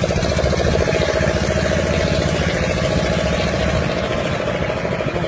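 A small boat's motor, most likely an outboard, running steadily at an even speed with a fast regular pulse.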